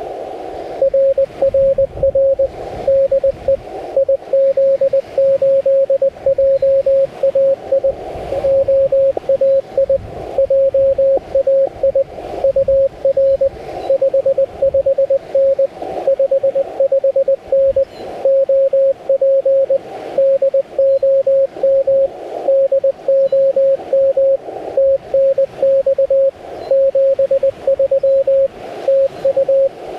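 Morse code (CW) from a Yaesu FT-891 transceiver: a single steady-pitched beep keyed into dots and dashes throughout, with the receiver's narrow-filter hiss in the gaps between characters.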